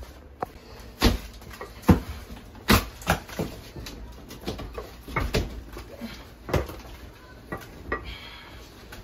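Irregular sharp cracks and knocks as pieces of a wall panel beside a bathtub are broken and pulled away by hand during demolition, with the loudest few in the first three seconds.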